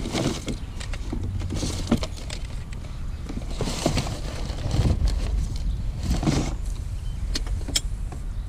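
Rustling and light clattering of household items being handled and moved about in a pile of curbside trash, in several short bursts with a couple of sharp clicks near the end, over a steady low rumble.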